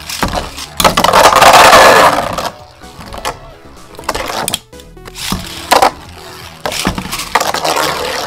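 Metal-wheeled Beyblade spinning tops whirring and clashing in a plastic stadium, with a loud grinding rush about a second in and several sharp clacks of collision, over background music.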